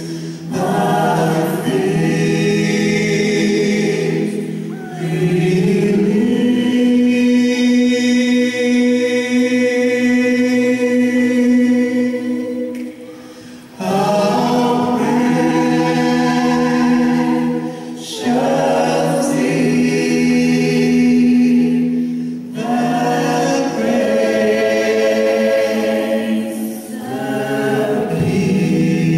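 Gospel choir singing long held chords in harmony, the voices breaking off briefly between phrases, with the longest pause about 13 seconds in.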